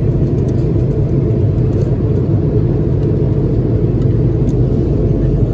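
Steady low roar of a jet airliner's cabin in flight: engine and airflow noise, even and unbroken.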